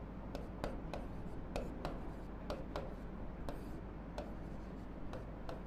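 Marker pen writing on a whiteboard: faint scratching strokes with irregular light ticks as the letters are drawn.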